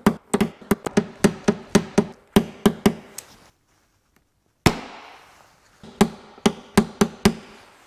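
Light, quick taps of a paintless-dent-repair hammer on a plastic-tipped knockdown against a car's steel quarter panel, about three to four a second. This is tapping down a slightly high crease left by a glue pull and blending it back into shape. Partway through the taps stop briefly, a single louder sharp crack sounds, and then a few more taps follow.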